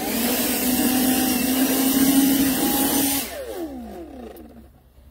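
Battery-powered handheld leaf blower running flat out with a steady whine and rush of air. About three seconds in it is released and winds down to a stop.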